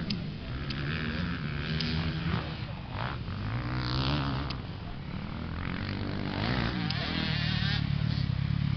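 Motocross dirt bike engines revving on the track, their pitch rising and falling again and again.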